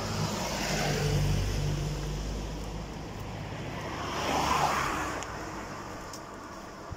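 Road traffic going by: a vehicle's low engine hum through the first couple of seconds, then another vehicle passing, its noise swelling to loudest about four and a half seconds in and fading away.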